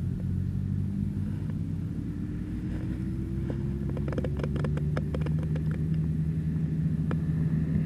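A motor vehicle's engine on a road, a low steady rumble that grows louder toward the end. About four seconds in there is a quick run of clicks from a spinning fishing reel.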